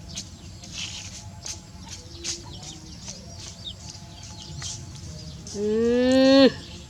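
A single drawn-out animal call lasting about a second, near the end, rising slightly in pitch, over a background of scattered short clicks and chirps.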